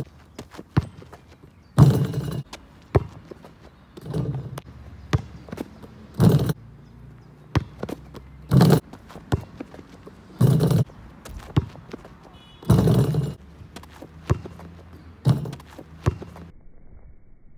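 Basketball dunk attempts on an outdoor hoop: a heavy thud about every two seconds, seven in all, as the ball strikes the hoop and the jumper lands, with short sharp knocks of the ball bouncing on the court in between.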